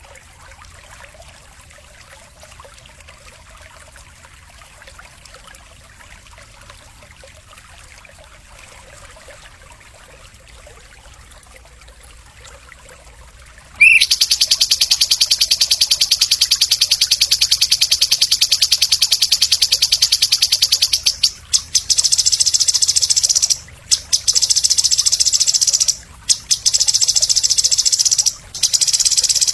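A birdsong training (masteran) recording. The first half is only faint hiss. About halfway in, a loud, very rapid high-pitched trill starts suddenly and runs on, broken by a few short pauses near the end.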